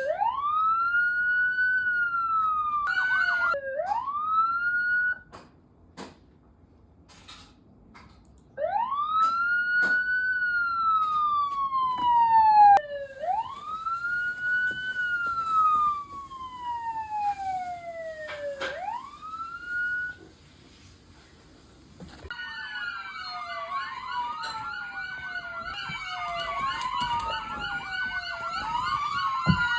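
Recorded police siren sound effect wailing: each cycle sweeps up quickly, then falls slowly, with two short pauses. About three quarters of the way in, several sirens start wailing over one another.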